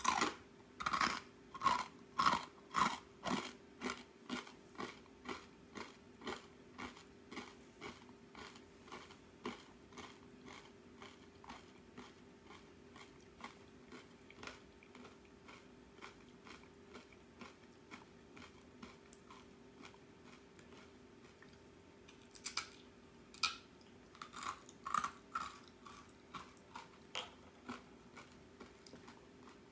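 Close-up chewing of crisp arare rice crackers: crisp crunches about twice a second, loudest at first and fading away. About two-thirds of the way through, a fresh bite sets off another run of crunches that fades in the same way.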